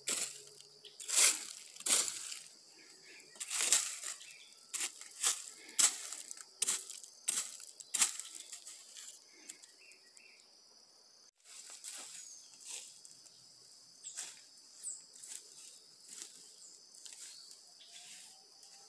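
Footsteps crunching through dry forest leaf litter, about one step every two-thirds of a second and loud through the first half. After a sudden break about eleven seconds in they give way to softer, scattered crackles. A steady high insect drone runs underneath.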